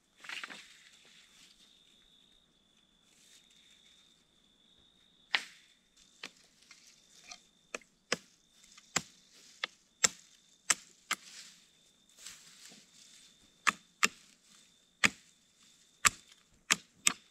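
Rustling of branches being handled, then sharp chopping knocks of a blade on thin wooden saplings, trimming off side branches. The knocks come irregularly, about one a second, starting about five seconds in and coming closer together after about nine seconds.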